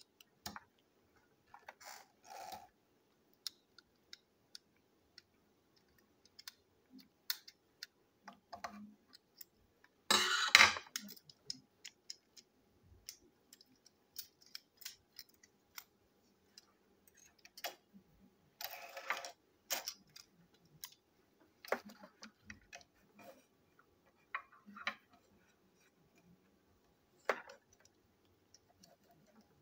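Small clicks and taps of a screwdriver and plastic toy-train parts being handled and unscrewed on a tabletop, with two louder clatters about ten and about nineteen seconds in.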